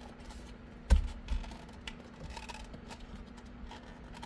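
Handling clicks and knocks from a C5 Corvette steering wheel's plastic parts and clips being worked by hand. There is one sharp knock about a second in, a softer one just after, and light scattered clicks.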